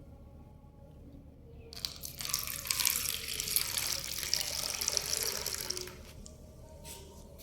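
Liquid pouring, a steady splashing hiss that starts about two seconds in and stops about four seconds later.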